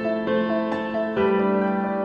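Background music: a soft piano melody of quick repeating notes over held chords, the harmony changing about a second in.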